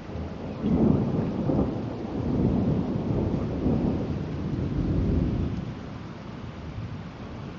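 Thunder rumbling: it breaks sharply about a second in and rolls on in waves for several seconds before easing off, over steady rain.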